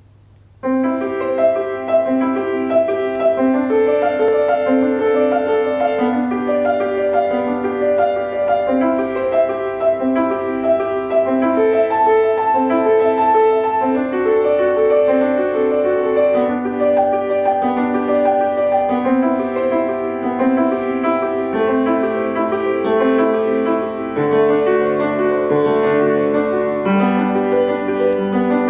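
Steinway grand piano being played: a continuous flow of sustained notes and chords, starting about a second in.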